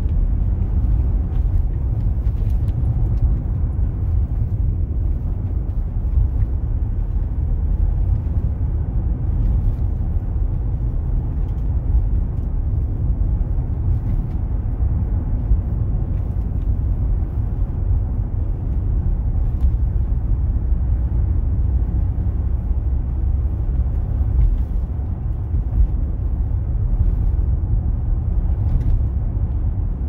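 Steady low rumble of a car driving on a snow-covered road, engine and tyre noise heard from inside the cabin.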